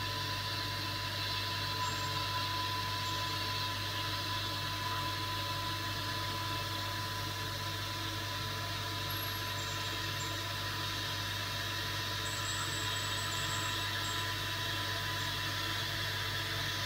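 Roly LaserMATIC mk2 diode laser running a cutting job: a steady mechanical hum and whir with a constant high-pitched whine.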